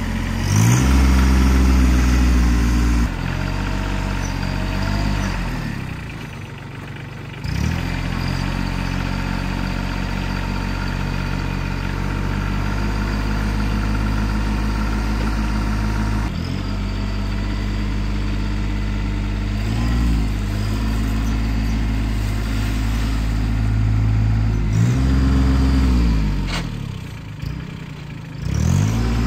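A motor vehicle engine running and being revved up and down several times, with steadier stretches in between; it eases off to a lower note about six seconds in and again near the end.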